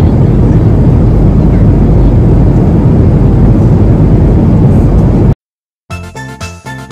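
Steady noise of engines and rushing air inside the cabin of a Skymark Boeing 737-800 descending to land. It cuts off abruptly about five seconds in, and after a brief silence music starts near the end.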